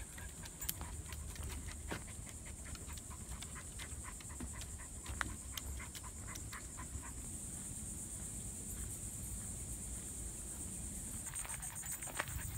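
Footsteps on a wooden boardwalk: scattered light taps over a low rumble of walking and handling noise. A steady high-pitched hiss runs underneath and grows louder about seven seconds in.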